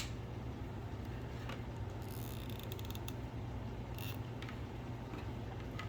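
Hot glue gun being squeezed to feed out glue: a faint creak with a few small clicks about two seconds in, and single light clicks now and then. A low steady hum runs underneath.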